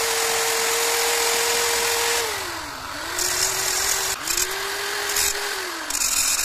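Corded electric drill fitted with a small abrasive cut-off wheel, running at a steady high whine, then cutting through a hacksaw blade in three bouts from about three seconds in. With each bite the motor pitch drops under the load and a harsh grinding hiss comes up.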